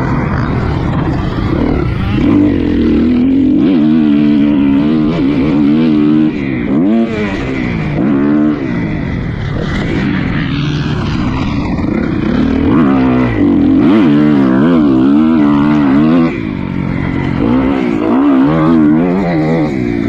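Dirt bike engine on a motocross lap, its pitch rising and falling over and over as the rider opens and chops the throttle through corners and jumps, with brief drops in level where he rolls off.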